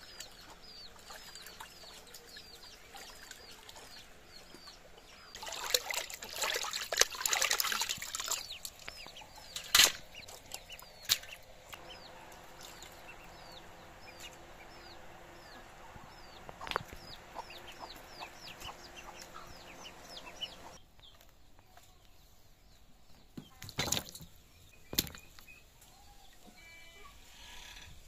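Water splashing and dripping as fish are washed by hand over a steel colander, with a loud burst of splashing a few seconds in and a few sharp clinks of steel pans later. A small bird chirps over and over in the background, and chickens cluck.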